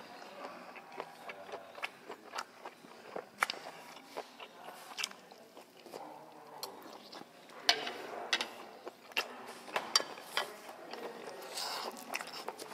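Close-up chewing of steamed octopus: a run of sharp, wet mouth clicks and smacks at an uneven pace.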